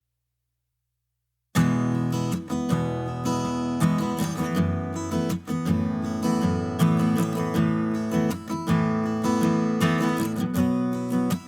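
Silence, then acoustic guitar music starts abruptly about a second and a half in and plays on steadily.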